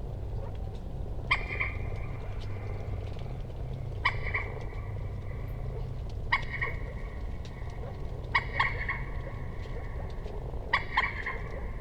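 Common moorhen calling: five short, sharp calls about every two seconds, over a steady low background hum.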